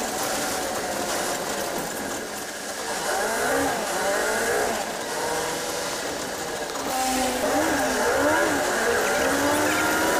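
City bus engine and drivetrain heard from inside the cabin while the bus is under way. The engine pitch rises and falls a few times as the bus speeds up and eases off.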